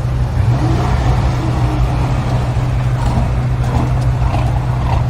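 A car engine idling steadily: an even, low rumble that holds the same pitch without revving.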